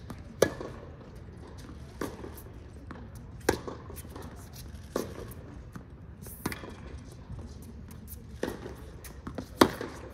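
Tennis rally on a hard court: sharp racket-on-ball hits going back and forth, about one every second and a half, some louder than others.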